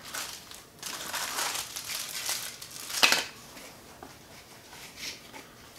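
Rustling and crinkling of a cloth drawstring bag and the packaging inside it as they are handled and searched through, with a sharp, louder crinkle about three seconds in, then quieter handling.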